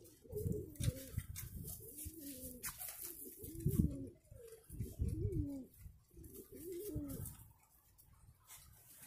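Domestic pigeons cooing nearby in a series of short, wavering, rolling coos that fade out near the end.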